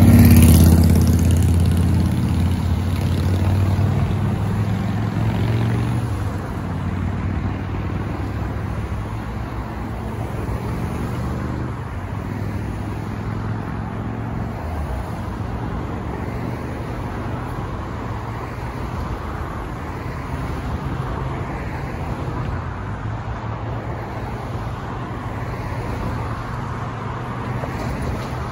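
Road traffic driving over a railroad crossing: steady car and tyre noise. The loudest moment is at the start, as a vehicle passes close and its engine sound fades away over the first few seconds.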